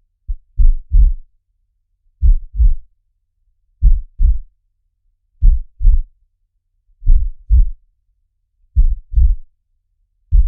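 Heartbeat sound effect: deep, low double thumps ('lub-dub') in even pairs, one pair about every second and a half, with silence between.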